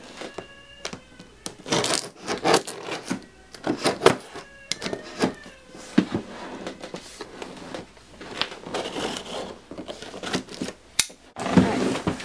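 A cardboard box being opened and its packaging handled: irregular rustling, scraping and sharp knocks of cardboard, with a brief squeak near the start.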